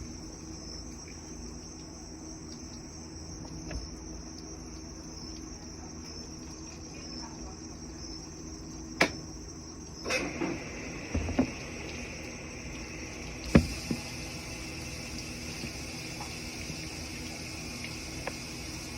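General Electric washing machine running: a steady hum with a high-pitched whine over it, and a few sharp clicks, one about halfway through and another a few seconds later.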